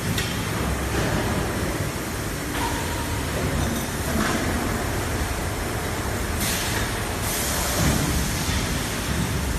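Automatic bag conveying and sewing machine running with a steady mechanical rumble. Its pneumatic actuators let out a hiss of compressed air about six and a half seconds in, lasting under a second.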